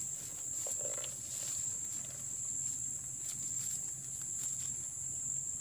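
Steady high-pitched chorus of insects trilling without a break, with a few faint clicks in between.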